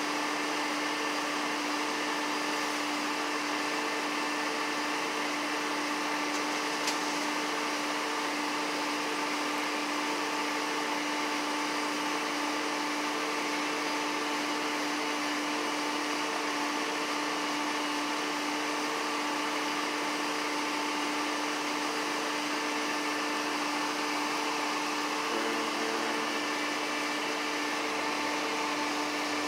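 A steady mechanical whir with a constant hum, unchanging throughout.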